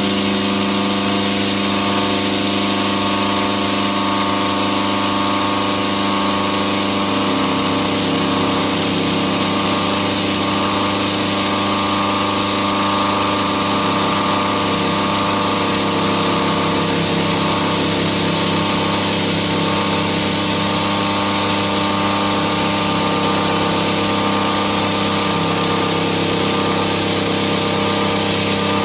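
Four-insert R-type milling cutter at 1,500 rpm on a Hwacheon HiREX-4000 machining center, semi-rough cutting a helical ball-screw groove in SM45C carbon steel. It makes a steady, even whine of several pitched tones over a hiss.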